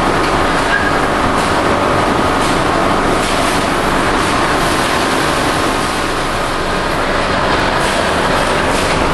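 Steady loud machinery noise of a seafood processing plant, an even rumble and hiss with a faint steady hum, without any break.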